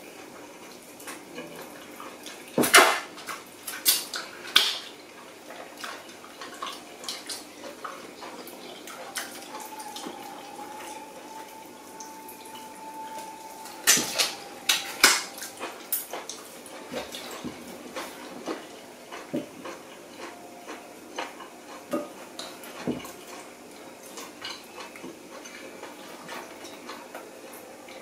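Eating by hand at a table: scattered clicks and clinks of fingers and food against ceramic plates, mixed with mouth smacks and finger-licking while chewing. The sharpest clinks come in a cluster about three to five seconds in and again around fourteen to fifteen seconds.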